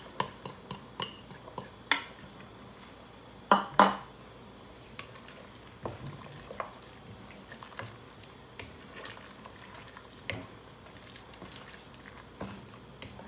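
A wooden spatula stirring bamboo-shoot soup in a cooking pot, with scattered knocks and scrapes against the pot; the loudest are a sharp knock about two seconds in and two close knocks about three and a half seconds in, then softer, sparser ones.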